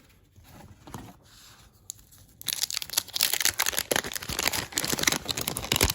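Wrapper of a 1989 Fleer wax baseball-card pack being torn open and crinkled by hand, starting suddenly about two and a half seconds in as a dense crackling after a faint rustle.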